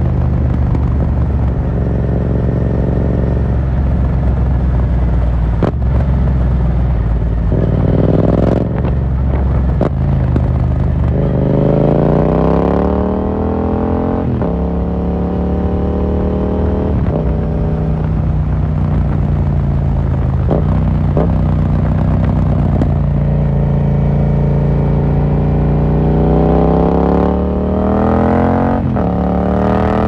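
2018 Yamaha MT-07's parallel-twin engine through an open Akrapovic carbon full exhaust with the dB killer removed, heard from the rider's seat while riding. The revs climb in several sweeps under throttle, drop back at gear changes or roll-offs, and hold steady between.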